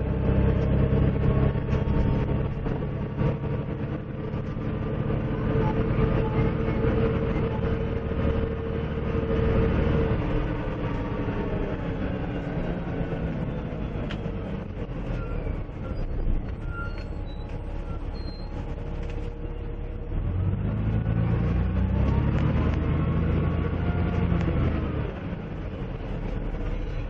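Dennis Dragon double-decker bus heard from inside the saloon while under way: the engine runs at a steady note, drops in pitch and eases off about ten seconds in, then pulls harder again about twenty seconds in, its note rising and falling as it speeds up.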